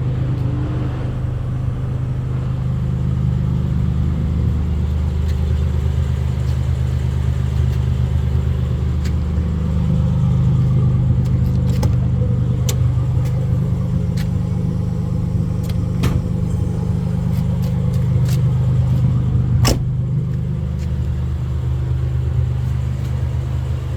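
Nissan 300ZX (Z31) 3.0 L VG30 V6 engine running steadily with a misfire, the fault that calls for a top-end rebuild. A few sharp clicks cut through, the loudest about twenty seconds in.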